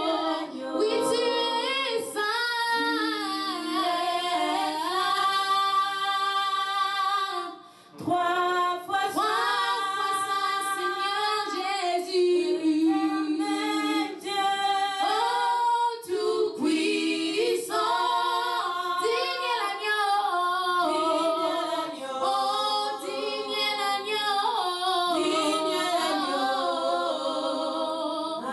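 Women singing a worship song unaccompanied, in long held notes with a short break about eight seconds in.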